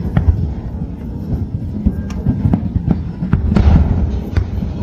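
Fireworks display: sharp bangs at irregular intervals over a continuous low rumble of distant bursts.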